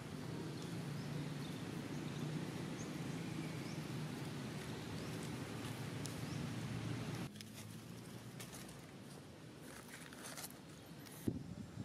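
Steady low outdoor rumble for about the first seven seconds, then it drops away suddenly. In the quieter part, dry fallen leaves crackle and rustle in scattered bursts as a baby macaque moves over them, with one sharp click near the end.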